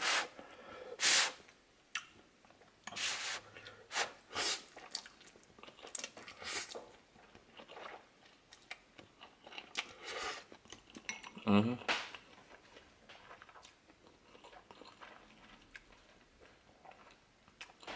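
Someone eating spicy instant ramen with chopsticks: irregular slurps and chewing, with chopsticks knocking against the bowl. Sniffles come in among them, from a nose running with the spice.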